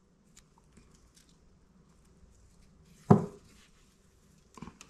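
Faint rustling and small ticks of artificial sinew and dried pine needles being handled. About three seconds in comes one short, loud vocal sound, and a softer one near the end.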